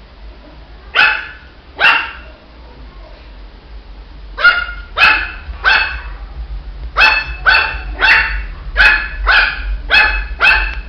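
Shih tzu puppy barking in short, high yaps: two barks about a second in, then after a pause a run of about ten barks at roughly two a second.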